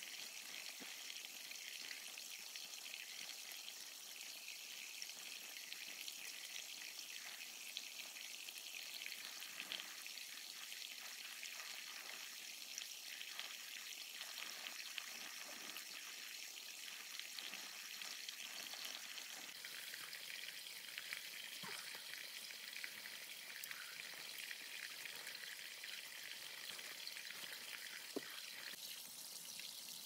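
Food sizzling on a barbecue: a steady hiss with fine crackles and a few louder pops, one near the end.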